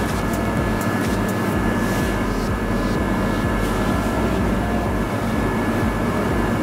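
Steady machine drone with a faint constant whine, as from bakery machinery or a ventilation fan, with faint light ticks of dough and trays being handled.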